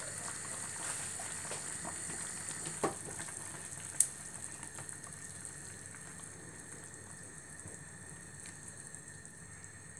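Chicken braising liquid simmering in a stainless steel pot, a steady soft bubbling hiss that slowly fades. Two sharp clicks come about three and four seconds in.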